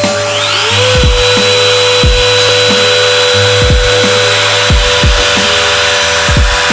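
Router spindle on a DIY CNC machine spinning up, with a rising whine for about half a second, then running steadily at speed over a running shop vacuum. Background music with a thudding beat plays throughout.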